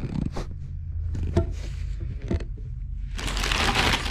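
Parts and packaging of a new toilet being handled: a few light knocks, then packaging rustling from about three seconds in.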